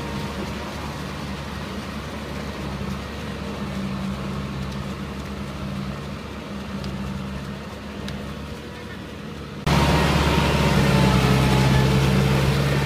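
Farm tractor's diesel engine running steadily while it ploughs a flooded rice field. The sound turns abruptly louder and closer about ten seconds in.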